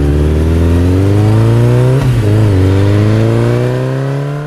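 Motorcycle engine accelerating, its pitch rising, with a brief drop about two seconds in as it shifts up a gear, then rising again. It fades out near the end.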